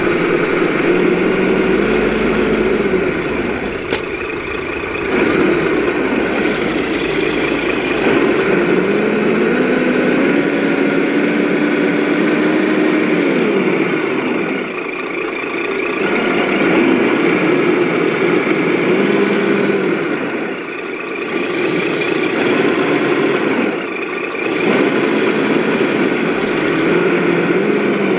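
Simulated diesel truck engine from an RC model truck's sound module, rising in pitch, holding and dropping back about four times as the throttle is worked. Under it runs a steady higher whine from the electric drive and gears.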